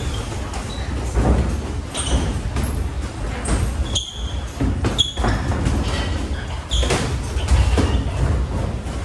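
Sports shoes squeaking on an indoor court floor in short, high chirps several times, with scattered thuds over a steady low rumble.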